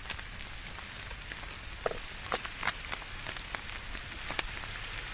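Small fish frying in hot oil: a steady sizzle with scattered sharp pops and crackles.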